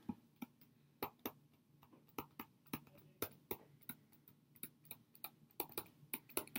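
Stylus tapping and clicking against a tablet screen during handwriting: light, irregular ticks, about three a second.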